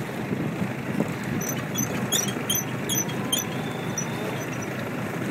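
Wind buffeting the microphone and water rushing along a reed boat under sail, with a short run of faint high ticks in the middle.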